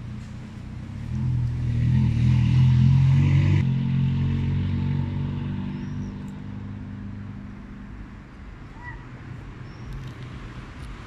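Engine of a passing motor vehicle: a low hum that swells from about a second in, is loudest between two and four seconds, then slowly fades away.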